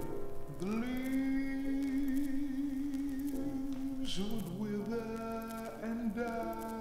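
Live music: one long held note with vibrato that slides up into place about half a second in, dips and wavers around four seconds, then holds again over other sustained notes.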